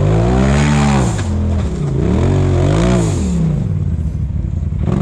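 Off-road side-by-side UTV engine revving up and dropping back twice as the throttle is worked in bursts.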